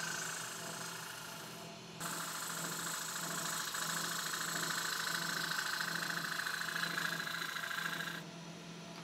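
Wood lathe running with a steady hum while a tool rubs against the spinning sycamore with a hissing scrape. The scrape breaks off briefly near two seconds in, then stops about eight seconds in while the lathe keeps running.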